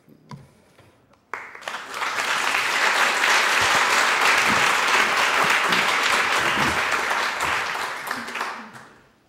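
Audience applauding, starting about a second in, swelling quickly to full strength and dying away near the end.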